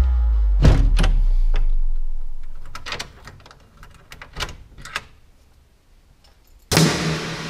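Wooden glazed door being worked by its metal handle: a low rumble, then a string of sharp clicks and knocks from the handle and latch that thin out to near quiet. A rushing noise starts near the end.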